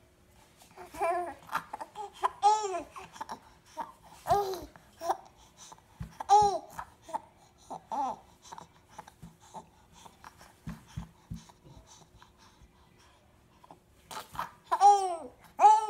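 Three-month-old baby cooing in short high-pitched calls, each rising and falling in pitch. Several come in the first half, a quiet stretch with a few soft knocks follows, and two louder calls come near the end.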